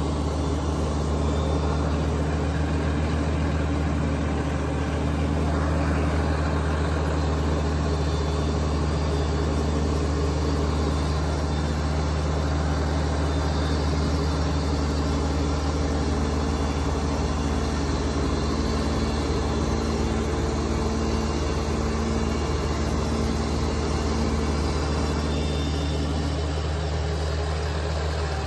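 Kubota BX2380 tractor's three-cylinder diesel engine running steadily at working speed, driving the front-mounted BX2816 snowblower as it throws snow.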